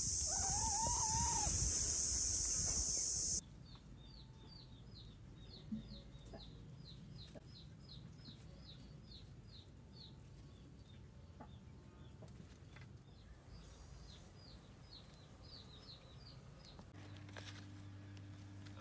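A hen gives a short wavering call over a loud, steady high hiss. After an abrupt cut the hiss is gone, and faint short high chirps repeat about two or three times a second for several seconds. A low hum starts near the end.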